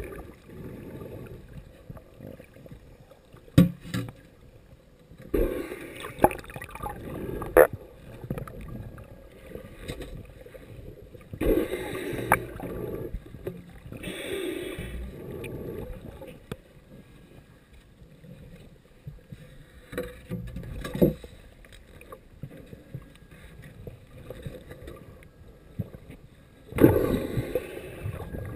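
Muffled underwater sound of shallow surf: water surging and sloshing in irregular bursts, with several sharp knocks scattered through it.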